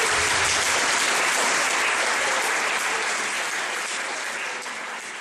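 Theatre audience applauding, the clapping holding steady and then tapering off near the end.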